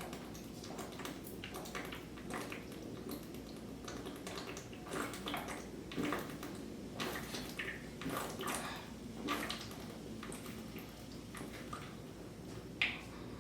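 A person chugging ginger ale from a bottle: quiet, irregular gulps and liquid glugs, about one a second.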